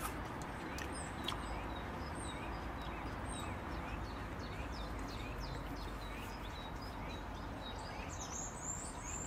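Small birds chirping, short repeated calls over a steady background hiss, with higher, busier chirping near the end.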